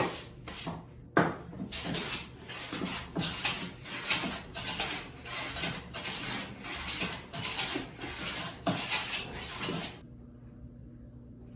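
Rhythmic back-and-forth strokes of a hand tool working wood, about two a second, stopping abruptly near the end.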